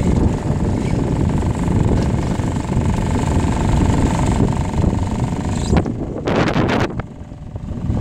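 Small outboard motor on a dinghy running steadily under way, mixed with wind on the microphone; about six seconds in the motor sound gives way to gusts of wind buffeting the microphone.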